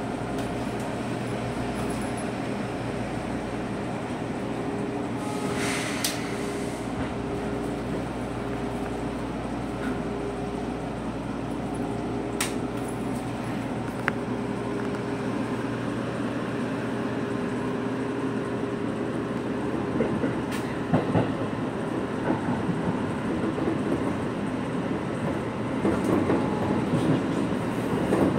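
Seibu 2000 series electric train running, heard from inside the front car as it pulls out and gathers speed. Its wheels click over the rail joints, with the clatter coming thicker and louder in the last several seconds as it crosses the points.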